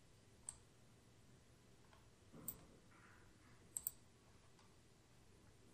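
Faint, sparse clicks of computer input (keys or mouse buttons): single clicks a few times, with a quick pair of clicks near four seconds in, over near-silent room tone.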